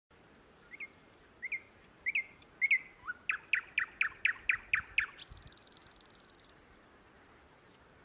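Thrush nightingale singing one song phrase: a few short rising whistled notes, then a run of loud repeated notes at about four a second, then a high, fast rattle that stops about six and a half seconds in.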